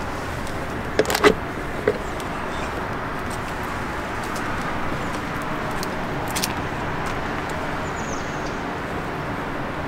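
Steady hum of road traffic, with a few sharp clicks about a second in, another near two seconds, and one more about six and a half seconds in.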